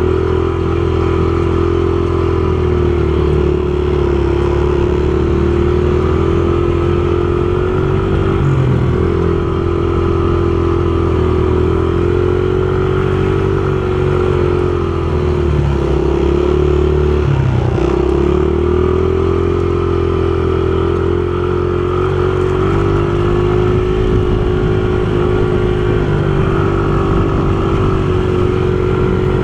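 Dirt bike engine heard from the rider's seat, running steadily at low to part throttle with gentle rises and falls in revs and a few brief dips around the middle.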